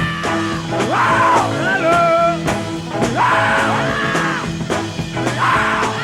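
Background rock music: a loud rock song with drums, guitar and a shouted, wordless vocal.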